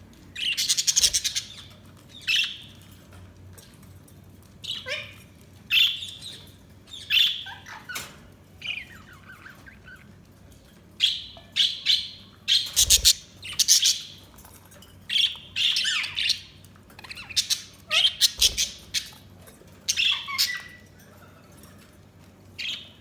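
Budgerigars chirping and squawking in short, sharp, buzzy bursts, coming in irregular runs with brief pauses between.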